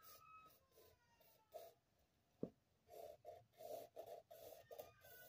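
Faint pencil scratching on sketchbook paper, a run of short quick strokes mostly in the second half, with one sharp click about two and a half seconds in.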